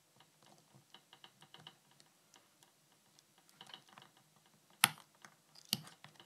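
Flush side cutters snipping the protruding resistor and diode leads off a freshly soldered circuit board: faint small clicks of the cutter jaws, then two sharp snips about a second apart near the end.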